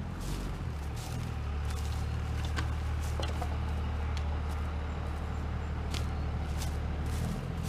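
Truck engine running steadily with a low hum, with scattered light clicks and rattles over it.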